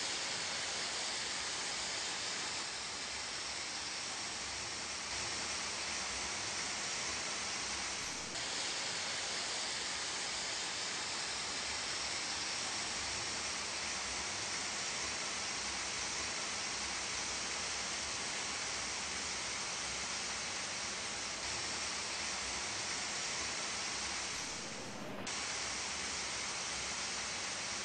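Steady spraying hiss from robotic paint sprayers in a paint booth, with brief breaks about eight seconds in and near the end.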